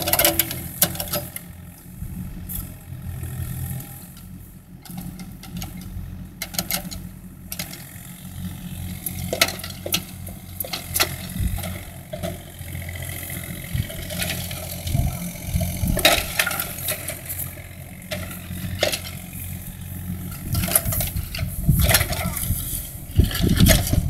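Mini excavator's diesel engine running steadily while the machine swings and works its arm, with scattered sharp knocks and rattles throughout.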